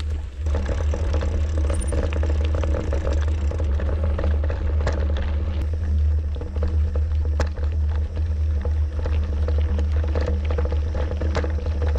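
Wind buffeting the microphone of a camera on a moving mountain bike, a steady low rumble. Tyres crunch over a dirt and gravel trail and the bike rattles in scattered irregular clicks.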